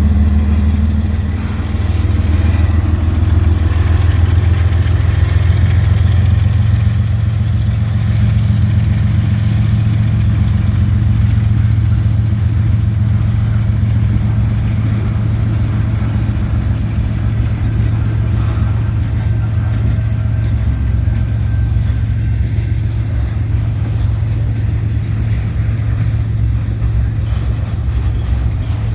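A diesel freight train running past close by: a steady, deep locomotive engine rumble with a fast rattle of wheels on rail, easing off slightly after the first few seconds.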